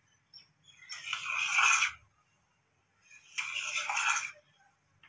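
Knife blade drawn through a thin sheet of rolled dough and scraping along the stone countertop beneath it, cutting strips. Two long strokes about two seconds apart, each lasting about a second and growing louder, with a third beginning at the very end.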